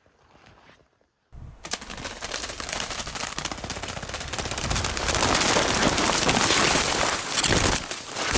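Loud, dense crackling and crashing of spruce branches and brush against the moving camera, with handling noise, as the person filming pushes quickly through thick undergrowth. It starts abruptly about a second and a half in and grows louder about halfway through.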